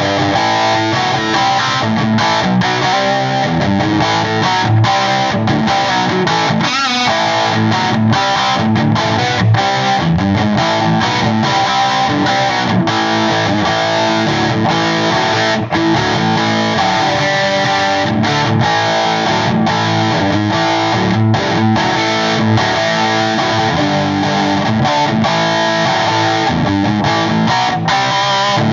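1962 Gibson Les Paul electric guitar played straight into a Cornford Roadhouse 50 amp and 4x12 cabinet, a continuous run of picked notes and chords with the pickup selector in the middle position.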